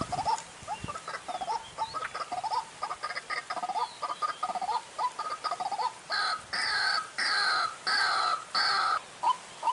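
White-breasted waterhen (ruak-ruak) lure call recording: a fast run of short rising calls, then about six seconds in five loud, harsh croaking calls in a row, then short calls resume at a slower pace.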